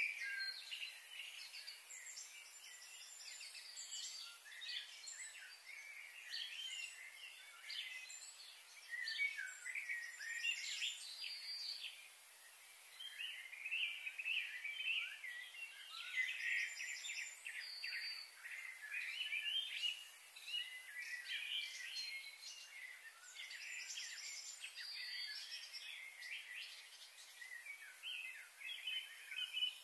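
Many birds chirping and calling at once: a busy, unbroken chorus of short, high notes and quick trills.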